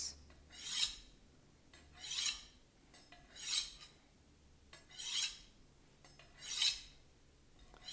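Kitchen knife blade drawn down a steel honing rod from heel to tip, five strokes on alternating sides. Each stroke is a short metallic scrape, about one every one and a half seconds.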